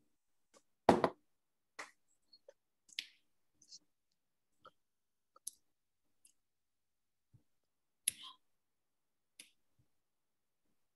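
Scattered small clicks and knocks at irregular intervals, about a dozen in all, the loudest a knock about a second in and another near eight seconds.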